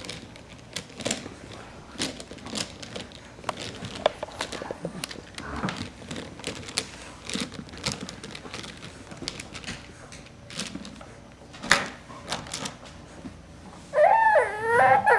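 Plastic teething rings clicking and clacking together at an irregular pace as a baby handles them. Near the end the baby starts to cry loudly.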